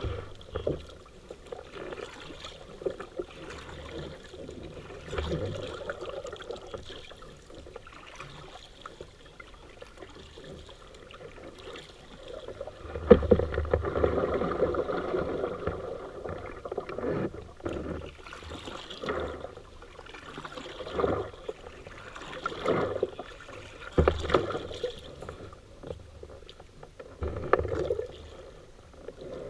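Paddling a small boat on a river: irregular paddle splashes and knocks every second or two over running water, with a louder rush of water for a few seconds near the middle.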